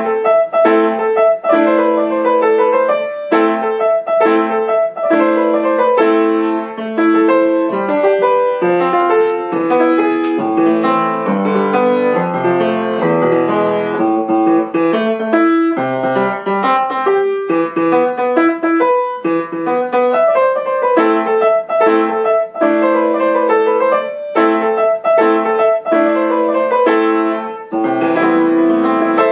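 Piano playing a fast, busy piece with notes struck in quick succession; the music starts abruptly.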